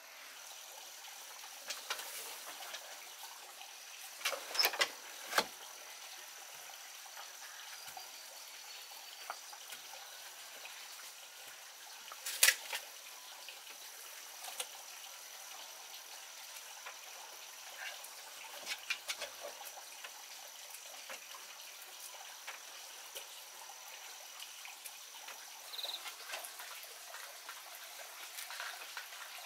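Quiet outdoor ambience with scattered sharp clicks and light rustles as dried chrysanthemum flowers are handled on a woven bamboo tray; the loudest clicks come in a quick cluster about four to five seconds in and once about twelve seconds in. A thin steady high-pitched tone runs underneath and stops near the end.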